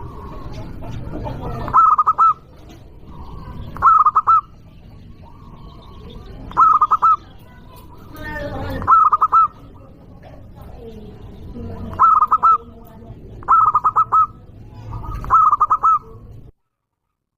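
Local zebra dove (perkutut) calling loudly: a short phrase of quick cooing notes, repeated seven times about every two seconds, over a low background rumble. The sound cuts off abruptly near the end.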